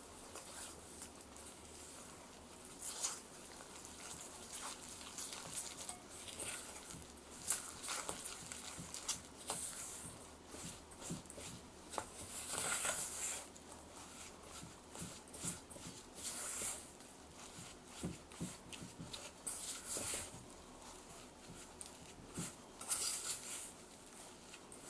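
Silicone spatula stirring flour, oil and water in a stainless steel mixing bowl, in irregular scraping strokes with light clicks against the metal, as the mix comes together into a sticky, shaggy bread dough.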